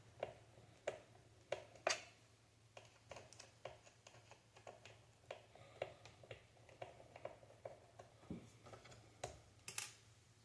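Faint, irregular small clicks and taps of a screwdriver working at tight screws in an Xbox Series S casing, over a faint low hum.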